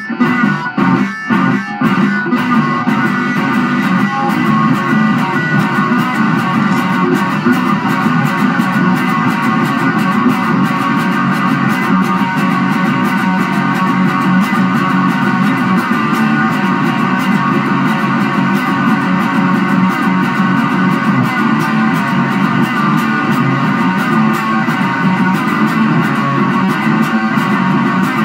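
Psychedelic rock band playing an instrumental passage: a few stop-start hits in the first couple of seconds, then a dense, steady wall of sound.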